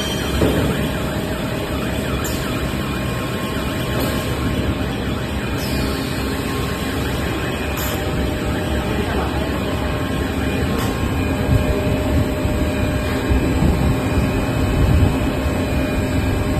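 PE stretch film production line with its extruders and automatic winder running: a loud, steady machine din with faint hum tones and a faint sweeping sound every few seconds.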